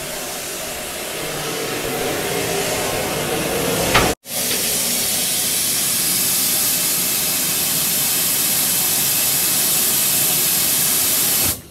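Steady hiss of compressed air venting from an Indian Railways coach's alarm-chain valve after the emergency chain has been pulled, emptying the brake pipe so the train's brakes apply. It breaks off briefly about four seconds in and stops just before the end.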